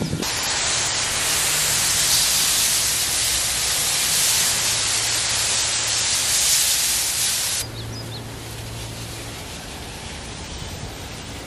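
Water jetting from a garden hose spray nozzle onto plants and a hard pad: a loud, steady hiss that cuts off abruptly about seven and a half seconds in.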